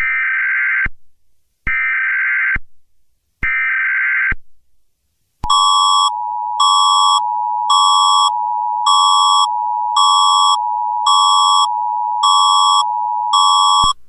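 Mock emergency-alert signal: three short buzzy data-like bursts, imitation EAS header tones, then an attention tone, a steady tone under a higher beep that pulses about once a second, which cuts off at the end.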